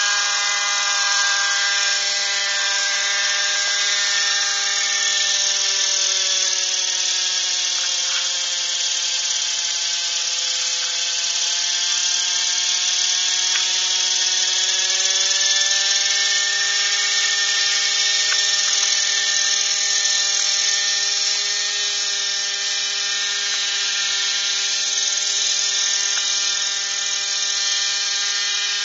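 JR Propo Venture 50 nitro RC helicopter hovering: the high whine of its two-stroke glow engine over the hiss of the spinning rotor blades. The pitch holds steady, sags for several seconds midway, then climbs back.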